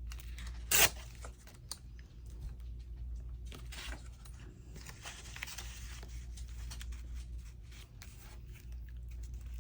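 Paper being handled and worked on a craft table: irregular rustling and scraping rasps, with one sharp crack a little under a second in.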